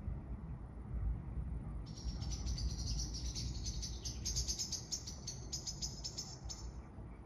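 A high, rapid chirping trill of evenly repeated notes starts about two seconds in and goes on for about five seconds, over a low steady rumble.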